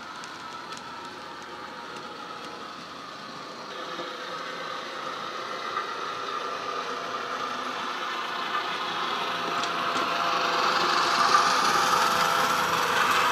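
Diesel engine sound from a DCC sound decoder, played through the small onboard speaker of a Triang OO-gauge dock shunter, with the rattle of model wagons running on the track. It grows steadily louder as the loco draws near.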